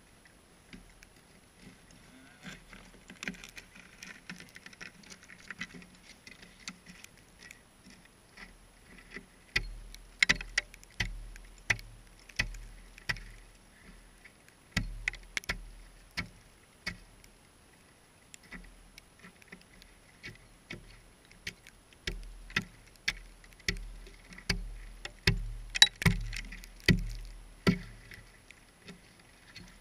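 Hatchet chopping at the edge of a hole in pond ice: sharp blows roughly one a second, in three runs that begin about ten seconds in, the loudest near the end.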